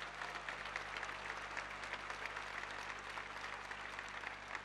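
A very large open-air crowd applauding: many hands clapping at once in a dense, steady spray of claps.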